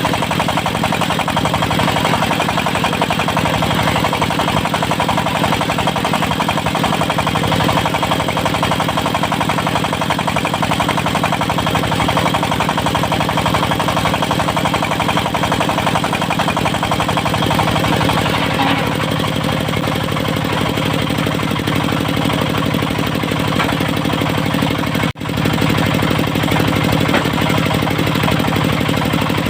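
Diesel engine of a portable circular sawmill running steadily. The sound cuts out for a split second about 25 seconds in.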